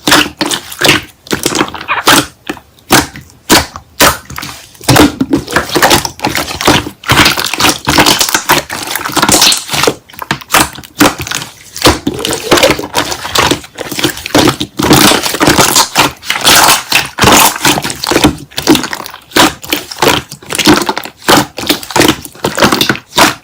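Slime being squished and pressed by hand, giving a rapid, uneven run of loud crackling and popping clicks.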